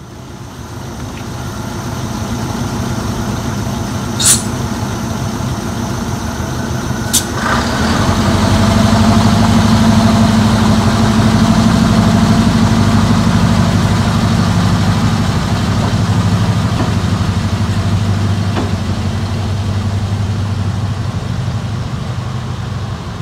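First-generation diesel multiple unit's underfloor diesel engines running. The sound builds over the first couple of seconds, with two short sharp sounds about four and seven seconds in. From about eight seconds in it becomes a louder, steady drone.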